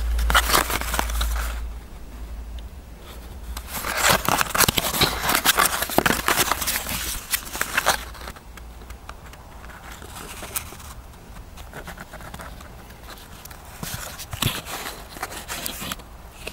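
Cardboard firework box and small paper-wrapped cone fountain handled in the fingers: scraping, rustling and crinkling, busiest from about four to eight seconds in, then quieter with a few sharper scrapes near the end.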